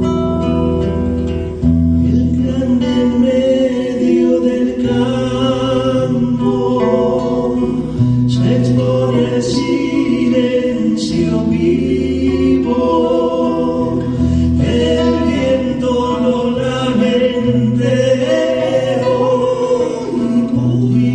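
Folk vocal music: voices singing held lines in close harmony over sustained low notes, with some guitar accompaniment.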